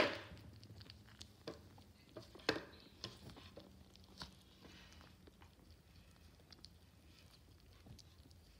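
Kittens eating dry cat food from a plastic bowl: faint crunching and small clicks of kibble, with a sharper knock at the very start and another about two and a half seconds in.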